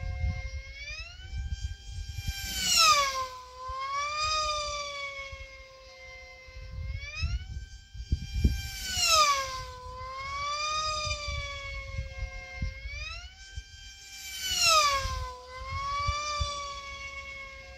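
Electric F3E pylon-racing model aircraft whining at high speed. The motor-and-propeller tone climbs and then drops sharply as a plane sweeps past the pylon, three times about six seconds apart, each pass with a brief rush of air noise. Wind rumbles on the microphone underneath.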